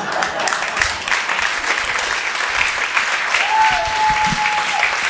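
Audience applauding steadily, with one long high held note cutting through the clapping for about a second and a half, about three and a half seconds in.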